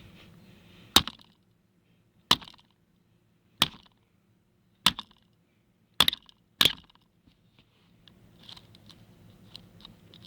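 Hammer striking a seat belt buckle six times, about one blow every second and a quarter, the last two closer together. The knocks are meant to free the buckle's stuck spring.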